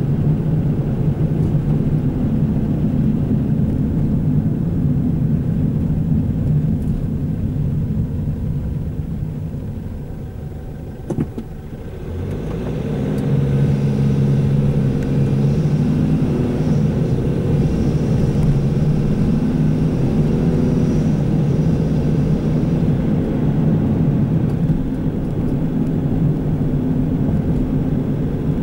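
Car engine and road noise heard from inside the cabin while driving. The noise eases off to a low about eleven seconds in, where there is a single click, then builds again as the engine note climbs with the car picking up speed.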